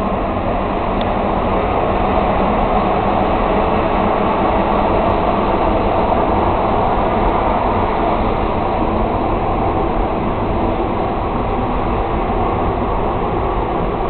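Locomotive-hauled passenger train pulling out of the station, a steady rumble.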